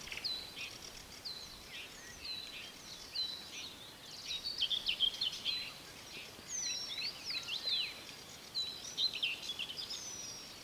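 Small songbirds singing: quick, high chirps and short whistled notes, both rising and falling, coming in repeated bursts over a faint outdoor background hiss.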